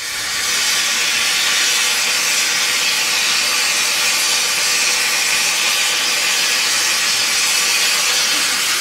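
Steady, loud hiss of steam escaping from a standing Orenstein & Koppel 0-4-0 tank steam locomotive, fading in at the start.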